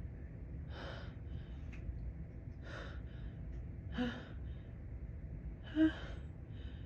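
A woman's sharp, gasping breaths as a dust-allergy sneeze builds: four of them, one to two seconds apart. The last, about six seconds in, is the loudest, with a short voiced catch.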